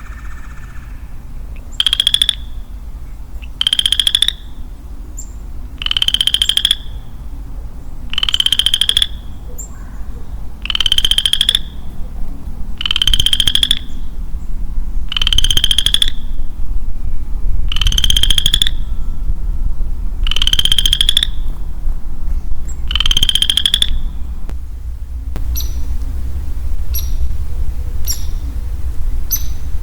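A male western chorus frog calling: about ten short, rising, pulsed trills at a steady pace of one every two seconds or so, which then stop. A few faint high chirps follow near the end.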